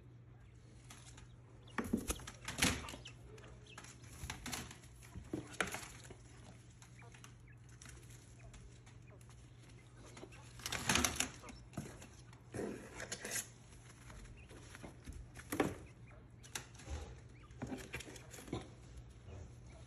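Quails flapping and scrabbling against a cardboard box as they are caught and lifted out by hand, in irregular short bursts, the loudest about two seconds in, about eleven seconds in and near three quarters of the way through. A steady low hum runs underneath.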